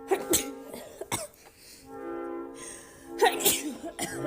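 A young woman sneezing in short, sharp bursts: two just after the start, one about a second in, and another pair a little after three seconds, over background music with long held notes.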